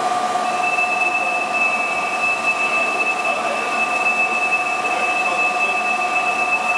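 Heller PFU 3 bed-type milling machine running: a steady mechanical noise with several steady whining tones, a higher whine joining about half a second in.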